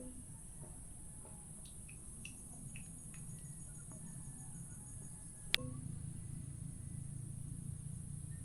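Steady high-pitched insect chorus, like crickets trilling, over a low steady rumble, with a few faint short chirps and one sharp click a little past halfway.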